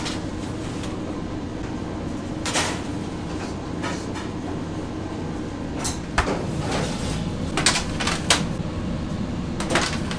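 Bakery kitchen work: a steady low machine hum with several sharp knocks and clatters of trays and utensils being handled, most of them in the second half.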